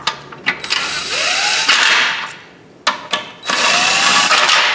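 Cordless power tool running down the fasteners on a plastic intake manifold in two runs, one of about a second and a half and a shorter one near the end. Each run has a whirring motor pitch that rises as it spins up and then holds.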